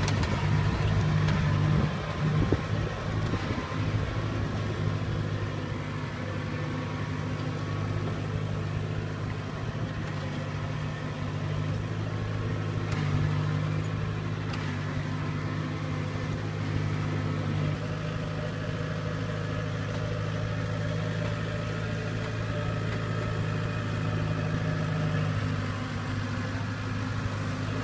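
Kubota DC-70 crawler combine harvester's diesel engine running at a steady pitch as the machine crawls through a flooded rice paddy.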